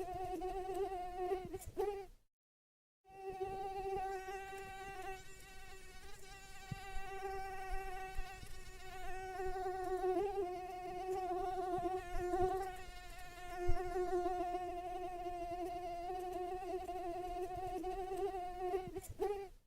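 Mosquito whine in flight: a steady, slightly wavering buzz from its wingbeat. It cuts out completely for about a second roughly two seconds in, then resumes.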